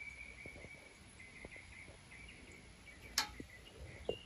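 Quiet outdoor ambience with a high, thin insect call that breaks off and returns, and a single sharp click about three seconds in.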